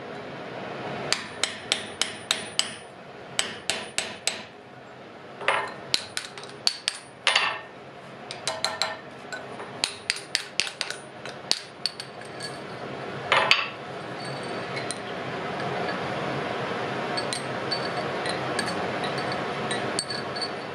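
Hammer blows on hot wrought iron at the anvil, doming a mushroom cap in one of the anvil's holes: quick runs of sharp, ringing strikes, the loudest about thirteen seconds in. After that the blows stop and a steady rushing noise builds.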